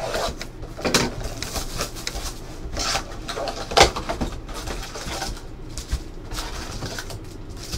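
Cardboard and plastic handling noises as a sealed Panini Select basketball hobby box is unwrapped and opened and its foil packs are pulled out. Irregular rustling and crinkling, with a sharp tearing snap about four seconds in.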